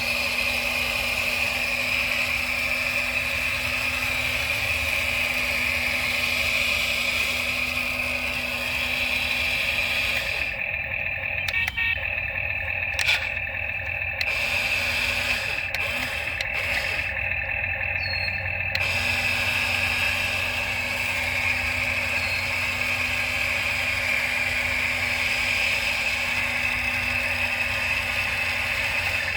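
Toy RC excavator's small electric motors and gears whirring steadily as it digs. The high part of the whir cuts out briefly a few times around the middle.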